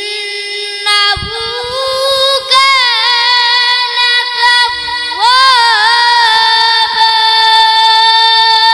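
A boy's voice reciting the Quran in the melodic tajweed style, drawing each syllable out into long ornamented notes that bend up and down, then settling into one long held note for the last few seconds.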